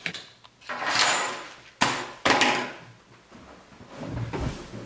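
Handling sounds while a padded envelope, keys and scissors are put down on a wooden table: a rustle, two sharp knocks, then a few dull thumps near the end.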